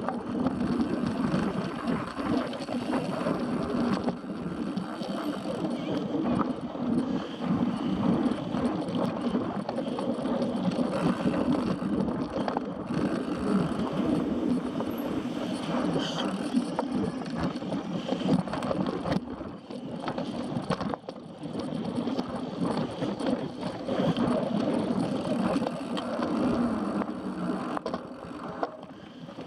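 Mountain bike ridden at race speed over dirt and grass tracks: tyres rumbling on the ground and the bike rattling over bumps with many small clicks, with wind buffeting the onboard camera's microphone.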